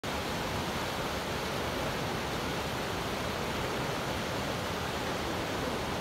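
A fast rocky stream rushing and splashing over boulders, a steady dense rush of water.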